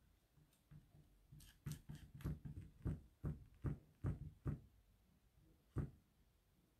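Small squeegee scraping chalk paste back and forth across a silkscreen stencil: a run of short, faint strokes, several a second, that stops after about four and a half seconds, with one more stroke near the end.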